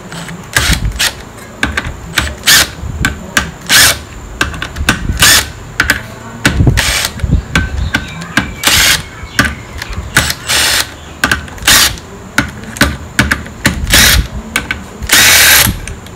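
Cordless impact driver run in many short, irregular bursts with a longer burst near the end, backing out the 10 mm clutch spring bolts a little at a time in a diagonal pattern.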